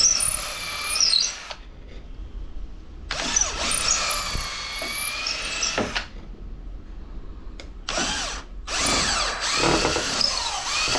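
Battery-powered drill boring into the wooden parts of a ship's wheel in four bursts, the longest about three seconds. Its whine rises and falls in pitch as the speed changes.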